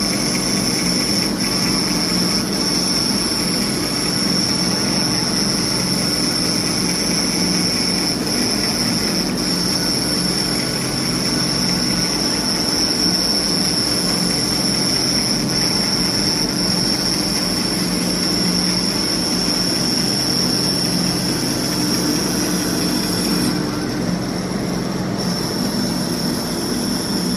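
CNC abrasive fast-wire foam cutter running steadily as it cuts polyurethane foam: a continuous mechanical hum with a steady high-pitched whine over it. The sound shifts and drops a little near the end.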